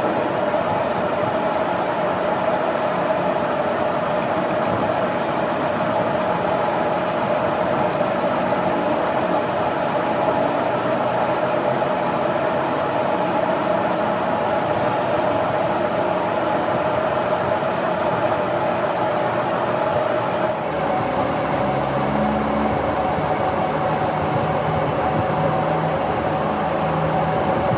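Metal lathe running steadily with a constant machine hum; about two-thirds of the way through the tone shifts and a lower hum comes in.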